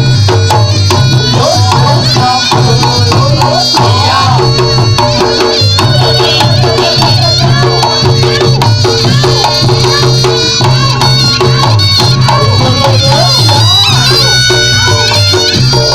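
Reog Ponorogo gamelan accompaniment playing continuously: a wavering, sliding reed-pipe melody over drums, with a low two-note figure repeating throughout.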